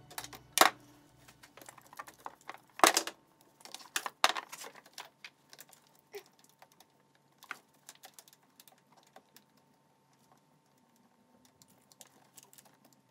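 Irregular clicks and knocks of parts being handled deep in a Mazda RX-8 engine bay while the ignition coils are unbolted and worked loose. The loudest knocks come in the first few seconds, then they thin out to light scattered clicks.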